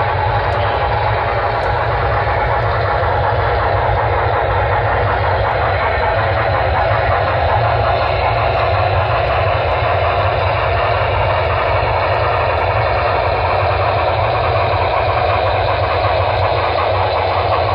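Sound system of a Broadway Limited Paragon3 HO scale Norfolk & Western 2-8-8-2 steam locomotive playing steady, rapid exhaust chuffing, with a deep rumble underneath from the Rolling Thunder bass system.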